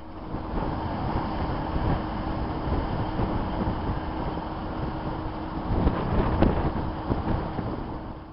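Storm wind rushing across the microphone over a steady hum from idling vehicles, with a few light knocks about six seconds in.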